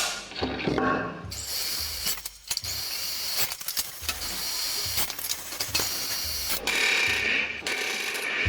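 Workshop power-tool noise: a power tool running in spells that stop and start, with mechanical rattling and clatter from the work.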